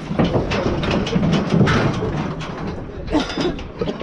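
Steel stock trailer clanking and rattling: a run of short metallic knocks from its bars and floor as someone climbs on it.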